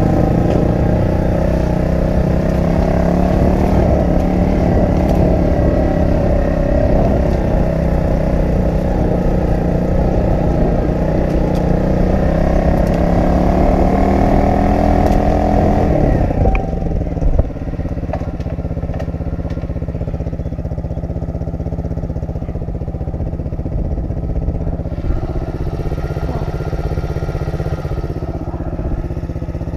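Pit bike's single-cylinder four-stroke engine running under way, its revs wavering and climbing. About halfway through the revs drop suddenly and the engine settles into a lower, steadier note.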